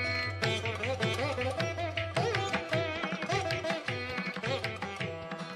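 Instrumental background music in an Indian classical style: a melody with pitch slides over a steady low drone, with regular drum strokes.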